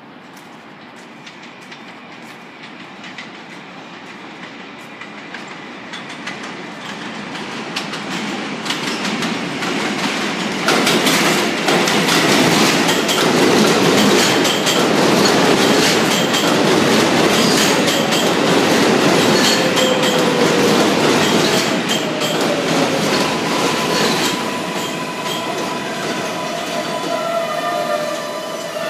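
New York City Subway R142A train running into the station, its wheels clattering over the rail joints and growing louder until the cars pass at full volume. Near the end the noise eases off and the wheels and brakes squeal as the train slows.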